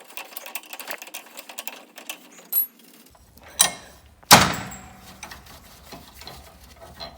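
Wrenches working a nut off a John Deere lawn tractor's front spindle bolt: rapid metallic clicking for about two seconds, then a few separate sharp metal clanks, the loudest about four seconds in with a short ringing tail.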